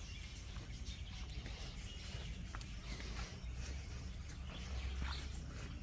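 Outdoor rural ambience: scattered short bird chirps over a steady low rumble.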